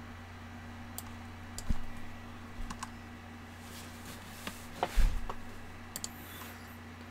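Sparse key presses and clicks on a computer keyboard picked up by a desk USB microphone, with a heavier knock about five seconds in, over a steady low hum.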